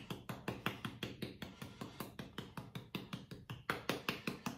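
A hand repeatedly tapping a small shaker of sweet paprika, shaking the spice out in quick, even taps at about five a second.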